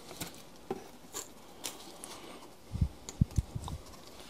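Dry elm-leaf bedding in a worm bin crackling and rustling in short sharp clicks as a wooden stick is worked through it, then a quick run of dull low thumps about three seconds in, the loudest sounds.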